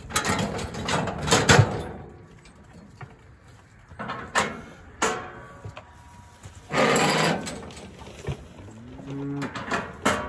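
Brahman cattle being worked in a chute: a burst of knocks and clatter at the start, a few more single knocks, a short rushing noise about two thirds of the way through, and near the end one short low moo.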